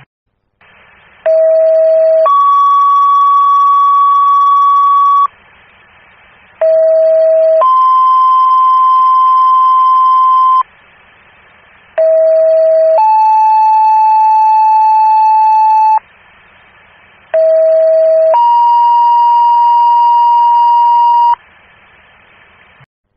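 Fire dispatch radio's two-tone sequential paging tones, sent four times: each time a short lower tone followed by a longer, higher one, the second tone a little different in each pair, to alert fire companies' pagers before a dispatch. Radio hiss fills the gaps between the pairs.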